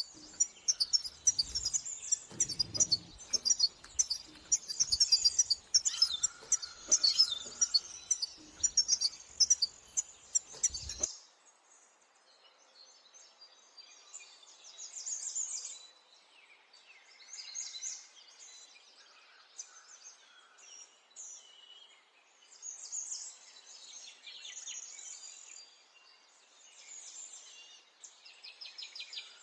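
Small finches singing and twittering in quick high phrases, dense and loud with low knocks under it for the first eleven seconds or so. Then the sound cuts abruptly to quieter, scattered bursts of song.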